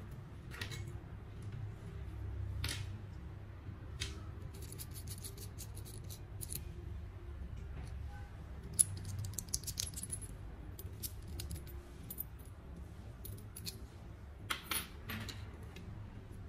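Small metal coaxial-cable connector parts clicking and tapping as they are handled and fitted together by hand, with a quick run of clicks about nine seconds in.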